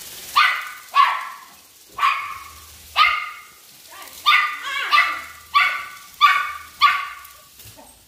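A chihuahua barking: a string of about nine sharp, high-pitched barks, roughly one a second at first and coming faster in the second half.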